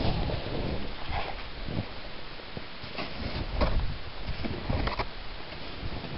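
Packed snow crunching and scraping in short strokes, several times, with snow jacket and snow pants rustling right against the microphone as someone crawls and digs inside a snow tunnel.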